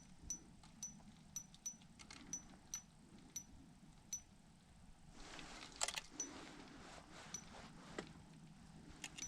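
Faint sharp metallic ticks, about two a second, from an ice-fishing reel being cranked as a hooked whitefish is brought up to the hole. About five seconds in there is a brief louder rustle and clatter of slush and ice at the hole.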